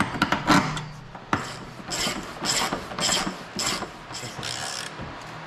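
A hand ratchet being cranked in quick back-and-forth strokes, running up the subframe body bolts. Each stroke is a short rasp of pawl clicks, about two a second. There are a few sharp clicks in the first half second.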